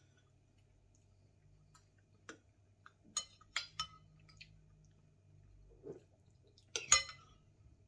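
Metal spoons clinking against ceramic bowls while eating: a few scattered sharp clinks, the loudest near the end.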